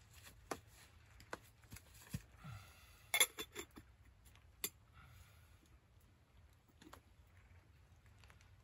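Metal camp cookware clinking and knocking as a mug and pot are handled. Scattered clicks, with the loudest cluster of knocks and a brief metallic ring about three seconds in.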